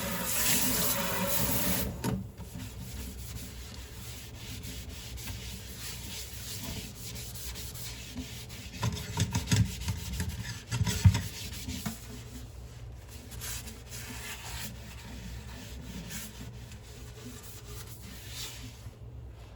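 Tap water running, then shut off about two seconds in. After that, dishes are scrubbed by hand with steady rubbing and scraping, with a few dull knocks of dishes from about nine to eleven seconds in.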